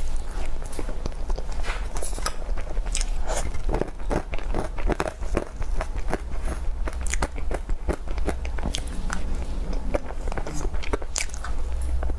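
Close-miked eating sounds: moist chewing and mouth clicks from soft cream-topped cake taken off a spoon, with many short sharp clicks throughout. A steady low hum runs underneath.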